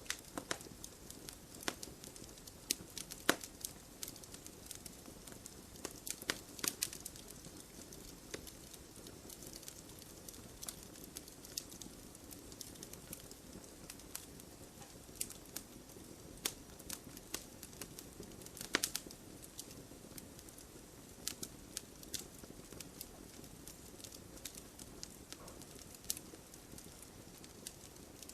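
Wood campfire burning: a low steady hiss of flames with irregular crackling and sharp snaps and pops of burning wood, a few louder pops standing out.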